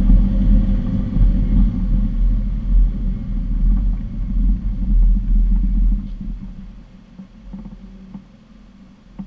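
An off-road 4x4 driving on a gravel dirt track makes a loud, low rumble of engine and tyres. About six seconds in the noise drops sharply to a low, quiet level as the vehicle comes to a stop.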